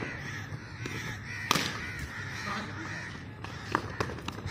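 Crows cawing repeatedly in the background. About a second and a half in there is a single sharp crack, a cricket bat striking the tape ball just after the delivery, and a few lighter knocks come near the end.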